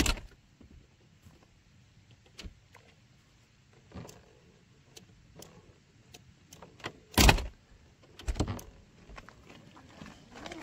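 Knocks and clicks of a Citroën 2CV's door and flip-up window being handled: a sharp bang at the very start, the loudest thud about seven seconds in and another about a second later, with light clicks in between.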